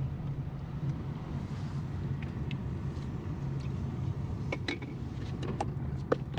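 Steady low engine hum and road noise inside a moving car's cabin, with a few sharp clicks and knocks in the last couple of seconds.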